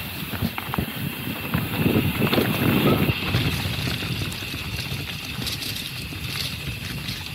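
Mountain bike riding down a dusty dirt trail: tyres rolling over loose ground and the bike rattling and knocking over bumps, loudest about two to three seconds in.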